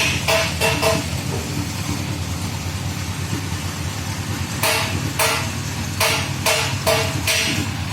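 A vehicle engine running steadily, with sharp repeated beats about twice a second in two stretches: near the start, and again from about halfway to near the end.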